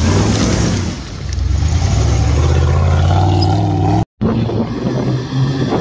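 Modified off-road 4x4's engine revving up and down under load as it crawls up a loose rocky slope. The sound cuts out for an instant about four seconds in, then the engine note carries on.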